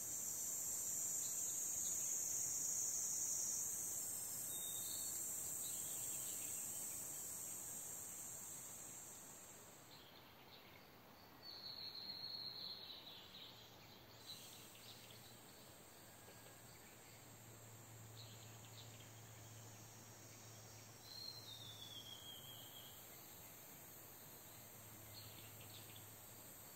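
A steady high-pitched insect drone, strong for the first ten seconds and fainter afterwards, with a bird calling twice in short falling notes, a little before halfway and again about four-fifths of the way through.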